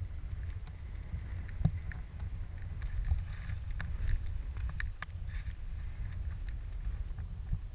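Skis ploughing through deep powder snow, heard as a steady low rushing rumble mixed with wind buffeting the microphone of a pole-mounted camera, with scattered light ticks of snow spray striking the camera.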